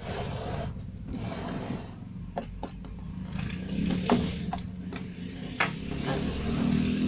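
Handling noise of a CRT television being turned around on a wooden workbench and its cables pulled: scraping, then a string of knocks and clicks, the loudest about four seconds in, over a steady low hum.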